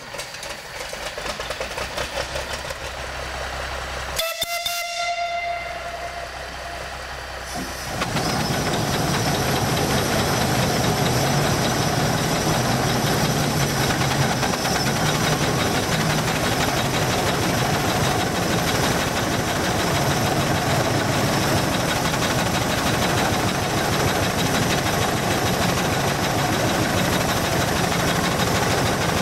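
Steam donkey engine: its steam whistle gives one blast, about a second long, about four seconds in. From about eight seconds in the engine runs steadily and loudly, hauling in a choked log on its cable.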